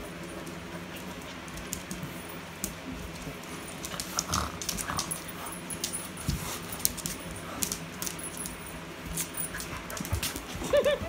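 A husky and a dachshund playing on a wooden floor: scattered clicks of claws on the floor and jingles of collar tags as they scuffle.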